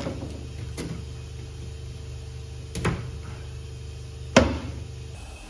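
Three short knocks on the sheet-metal body of a stripped 1957 VW Oval Beetle, about one, three and four and a half seconds in, the last the loudest, over a steady low hum.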